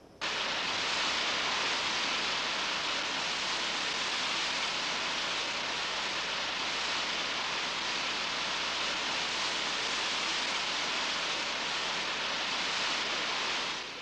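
Waterfall rushing: a steady hiss of falling water that cuts in suddenly and drops away near the end.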